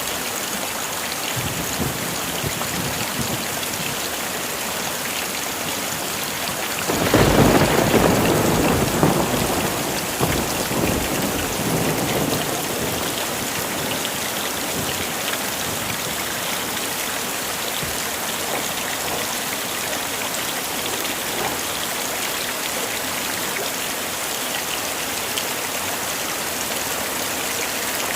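Heavy rain falling steadily. About seven seconds in, a clap of thunder rumbles on for around five seconds and fades back under the rain.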